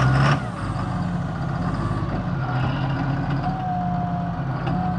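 John Deere log skidder's diesel engine running steadily while the machine rolls. A short loud rush comes at the very start. A thin squeal rises from the front wheel about three and a half seconds in and again near the end, which the crew takes for a failing wheel bearing at the end of the front axle.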